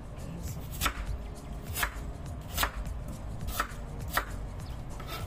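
Kitchen knife slicing a peeled carrot on a wooden cutting board: about six sharp knocks of the blade going through onto the board, roughly one a second.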